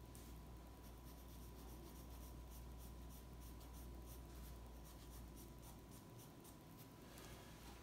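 Graphite pencil scratching on sketchbook paper in faint, quick strokes, thinning out near the end.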